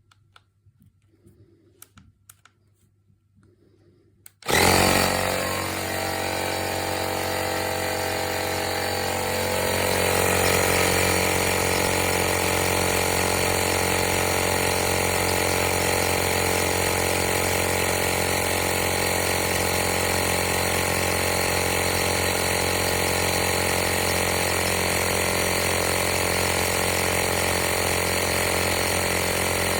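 AstroAI 12 V portable air compressor (tyre inflator) switching on suddenly about four and a half seconds in, after a few faint clicks, and then running steadily; it grows a little louder about ten seconds in.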